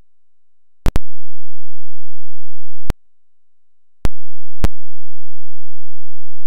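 No audible music or speech, only a few sharp digital clicks: two close together about a second in, then single clicks near three seconds, four seconds and four and a half seconds.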